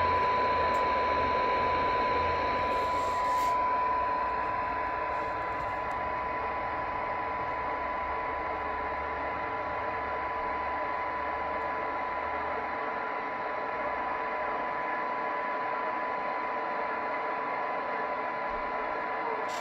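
Tram D-80 CB radio's speaker putting out a steady 1 kHz test tone through heavy receiver hiss. It is a weak generator signal held near the receiver's 12 dB SINAD sensitivity point. A low hum underneath fades out about two-thirds of the way through.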